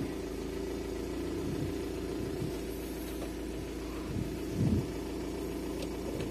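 Car engine idling steadily, with a few short low thumps.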